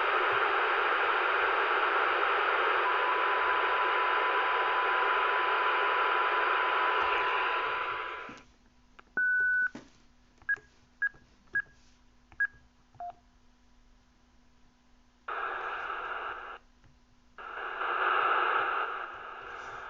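Kenwood TK-7020 two-way radio's speaker putting out receiver hiss, with a steady test tone joining about three seconds in. The hiss cuts off sharply about eight seconds in. Then the radio gives one longer beep, four short key beeps and a lower beep, and later two separate bursts of hiss from the speaker.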